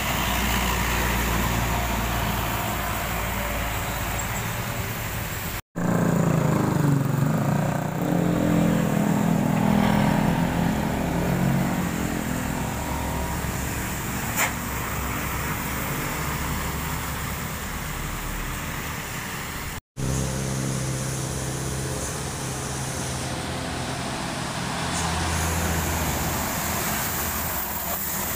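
Heavy laden diesel trucks passing slowly and close by, the deep engine note under a steady hiss of tyres on wet asphalt. The engine sound cuts off for an instant twice and comes back with a different note.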